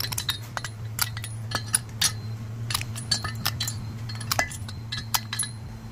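Steel socket clinking and tapping on the valve stem seals and metal of a Ford 4.0 SOHC cylinder head as the seals are pushed down onto the valve guides by hand: a string of short, sharp metallic clicks at irregular spacing, over a steady low hum.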